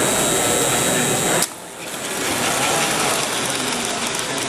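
American Flyer S gauge model trains running past on the layout: a steady mechanical clatter of wheels on track and motors, with a high whine that cuts off suddenly about a second and a half in.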